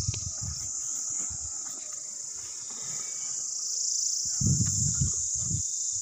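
A chorus of insects making a steady, high-pitched, unbroken drone, with low rumbling thuds about four and a half to five and a half seconds in.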